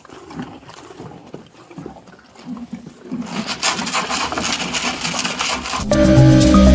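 An animal's calls over outdoor noise, growing denser about three seconds in. Background music with a strong bass starts just before the end.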